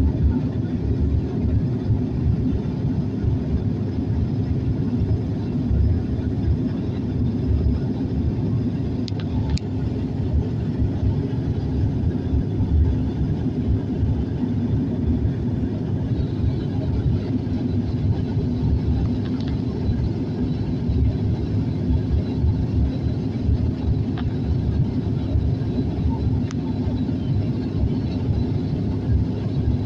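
Steady low rumble of a Bombardier airliner's engines and airflow, heard from inside the passenger cabin.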